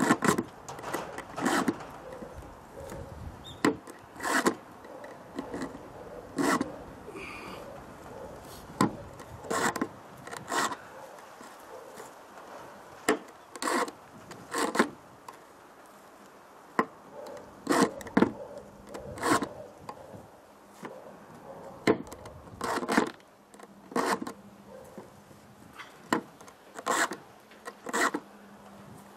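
Round chainsaw file rasping across the steel cutters of a saw chain during hand sharpening: short strokes about every second, often in pairs, with brief pauses as the chain is moved on to the next cutter.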